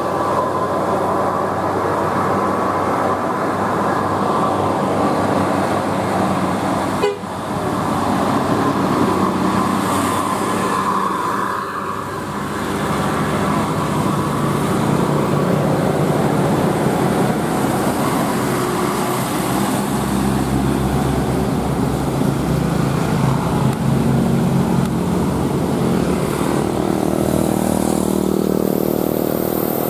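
Indonesian bus 'telolet' horns, multi-tone musical air horns playing melodies of held, changing notes over running buses. There is a sharp break about seven seconds in.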